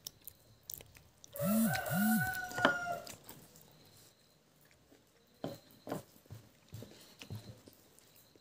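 A rooster crowing once, about a second and a half in: one long call of under two seconds, the loudest sound here.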